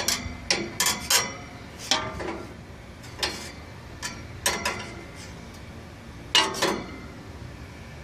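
A screwdriver clinking against the metal wire fan guard and fan blade of an air conditioner's outdoor condenser unit as the fan is spun by hand with it. About a dozen irregular, sharp metal clinks, some in quick pairs, each with a short ring.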